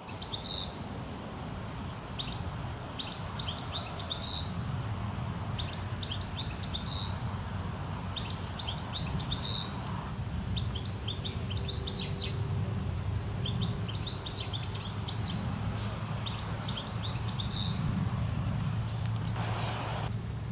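A songbird singing short phrases of quick high notes, repeated about every two seconds, over a steady low rumble of background noise.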